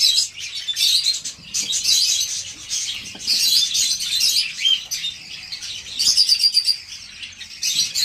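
Caged Java sparrows chirping, many short high chirps overlapping.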